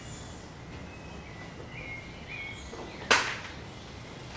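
Quiet open-air background with a few short bird chirps, and a single sharp knock about three seconds in.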